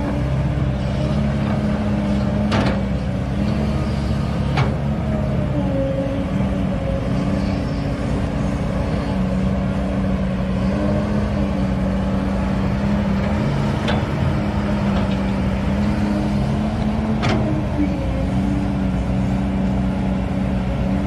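Kobelco excavator's diesel engine running steadily with a constant note. Four sharp knocks come at intervals, about 2.5, 4.5, 14 and 17 seconds in.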